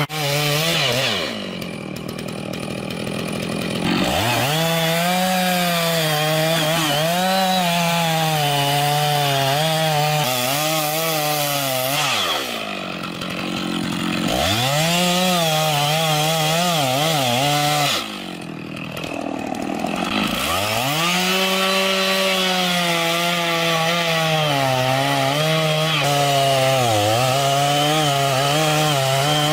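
Chainsaw running at high revs with its pitch wavering under load, as when cutting wood. Three times it drops back toward idle, then revs up again.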